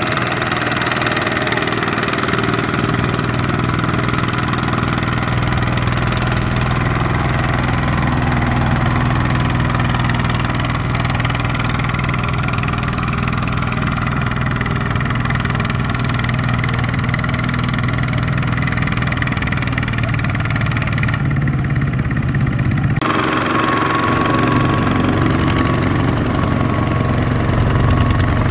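Single-cylinder diesel engine of a two-wheel walking tractor running steadily under load as it hauls a loaded trailer through mud. The sound shifts abruptly a little past three-quarters through.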